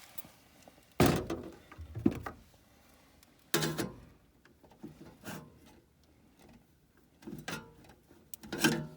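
Several separate clunks and knocks from hand work on a gas furnace, the loudest about a second in and just after two seconds, with quieter ones spread through the rest.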